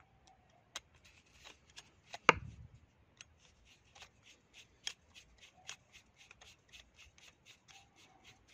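Screwdriver turning a small screw into a GM12F carburettor's metal body: a run of short clicks and scrapes about three a second, with one louder knock a little over two seconds in.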